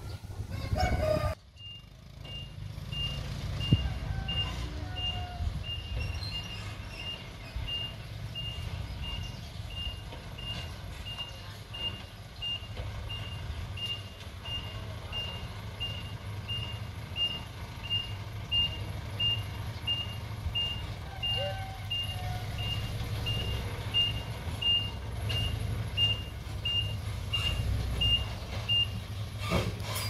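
Reversing alarm beeping at an even pace, about three beeps every two seconds, over the low rumble of a heavy diesel engine. The beeping starts about a second and a half in and stops near the end.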